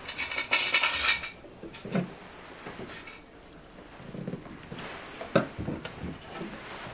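Thin electrical wires being handled and rubbed against a timer relay and time switch: a brief rustling scrape for about the first second, then scattered light clicks and taps.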